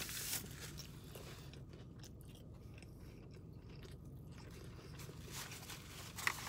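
A person chewing a mouthful of fried chicken sandwich, with faint crunches from the crispy breading and soft mouth sounds.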